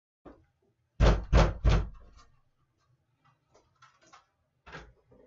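Three loud bangs on a wooden door about a third of a second apart, then small handling clicks and a softer thump near the end.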